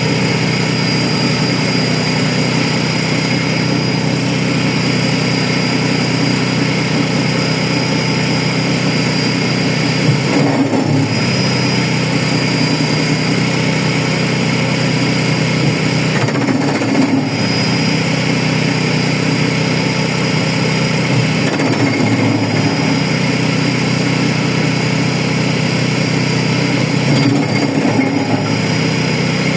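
Wood chipper's engine running steadily, its note briefly wavering four times, about every five to six seconds, as branches are chipped.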